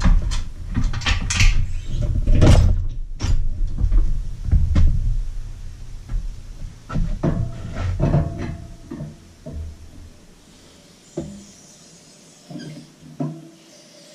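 Irregular clunks and knocks of a Mercury Thunderbolt 500 50 hp outboard's power head being worked loose from its mid cowl, thinning out to a few scattered knocks after about ten seconds.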